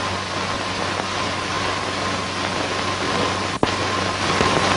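Steady hiss and low hum of an old optical film soundtrack, with a faint steady high tone, broken once by a sharp click about three and a half seconds in at a splice in the film.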